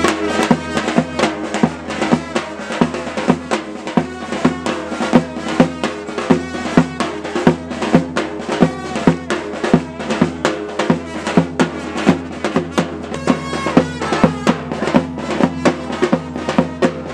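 Festive folk music with loud drum strokes beating a steady, quick rhythm under a held melody line.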